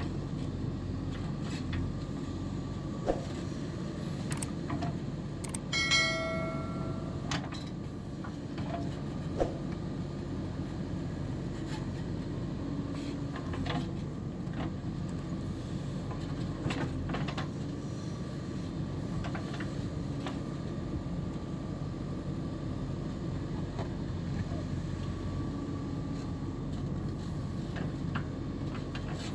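JCB 3DX backhoe loader's diesel engine running steadily under work, with a few sharp knocks and one ringing metallic clang about six seconds in.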